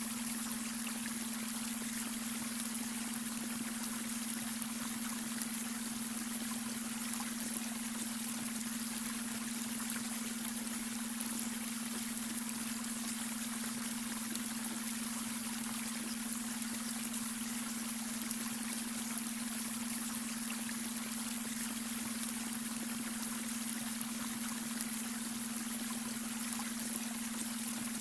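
Babbling brook, water running and trickling steadily, with a steady low hum tone layered underneath as a beta brainwave tone.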